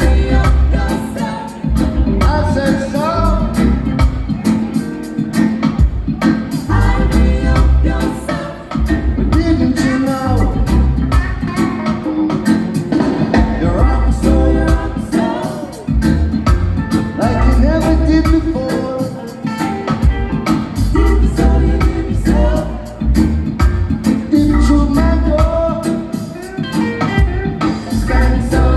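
Live reggae band playing through a sound check: bass and drums in a steady groove, guitar, and singers.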